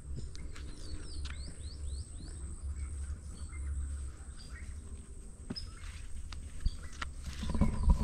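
Outdoor ambience: a steady low rumble of wind on the microphone. About a second in, a short run of quick bird chirps, with a few light clicks from handling or steps scattered through.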